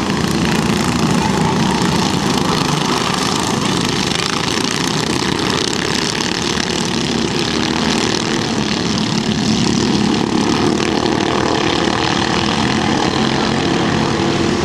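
Engines of a pack of 13 hp racing karts running at speed around the track, blending into a steady, continuous drone.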